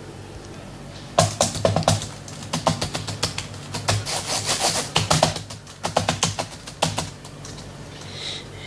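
Rapid, irregular clicking of an HP laptop's keyboard keys being pressed in a flurry, starting about a second in and stopping about a second and a half before the end.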